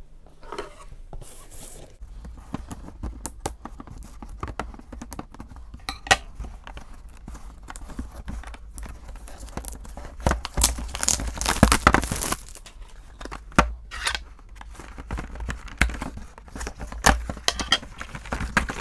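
Plastic wrapping being torn and peeled off a small cardboard toy box, crinkling and crackling, and the cardboard box then being pulled open. The tearing comes in bursts, loudest about ten to twelve seconds in and again near the end.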